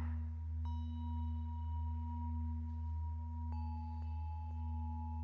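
Two sustained bell-like ringing tones: one struck about a second in, then a lower one about three and a half seconds in, both holding steady over a constant low hum.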